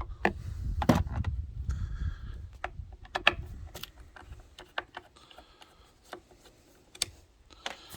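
Scattered sharp clicks and light knocks of loose plastic car parts being handled, with low handling rumble on the phone's microphone during the first few seconds.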